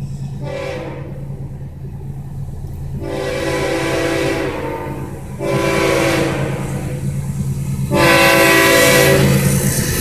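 Florida East Coast freight train's diesel locomotive horn sounding a grade-crossing signal: two long blasts, then a short one, over the steady rumble of the locomotives' engines, all growing louder as the train approaches.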